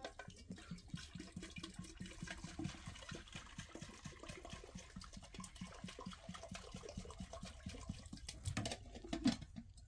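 Water dripping and pattering in many small, irregular taps, typical of rain drops falling on a surface. A louder brief sound stands out near the end.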